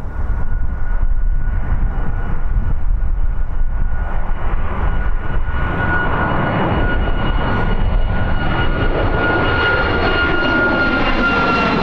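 Boeing 737 MAX 8's CFM LEAP-1B turbofans under power as the jet climbs out after takeoff and passes overhead: a steady jet rumble with a high fan whine that slowly falls in pitch in the second half.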